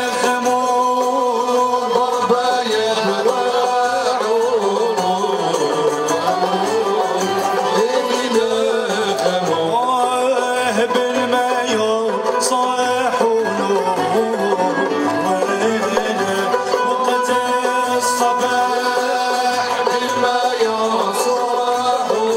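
Andalusian malouf ensemble performing Middle Eastern music: a male voice sings a wavering, ornamented melody over strings including oud, violins, qanun and a plucked long-necked lute.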